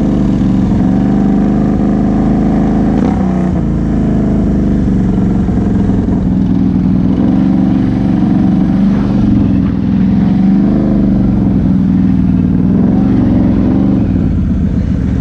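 Can-Am Outlander XMR 1000 ATV's V-twin engine through an aftermarket Big Gun exhaust, running under way, its note rising and falling as the throttle opens and eases off.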